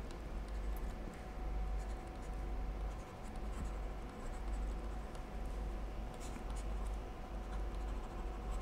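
Stylus scratching and tapping faintly on a tablet as words are handwritten, over a steady low hum.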